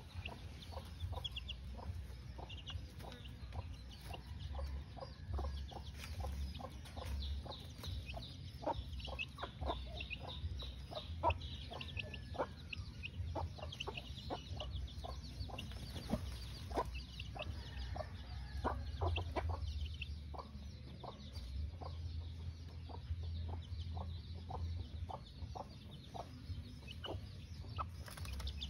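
White Kelso gamefowl hen clucking in short repeated notes while her chicks peep in quick high chirps, over a steady low hum.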